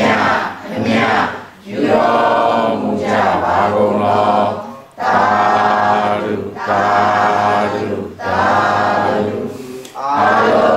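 Buddhist chanting by several voices together with a monk leading into a microphone: a run of drawn-out, sung phrases, each about a second and a half long, with short breaks for breath.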